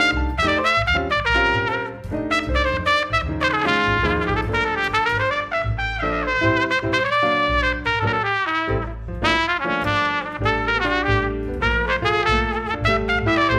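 Jazz trumpet soloing in quick runs of short notes, accompanied by piano chords and upright bass.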